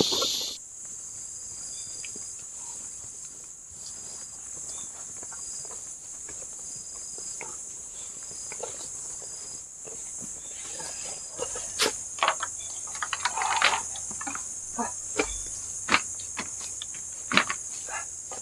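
Steady high-pitched chorus of insects such as crickets or cicadas, with a short high chirp repeating about once a second in the first half. From about ten seconds in, scattered clicks and knocks join it.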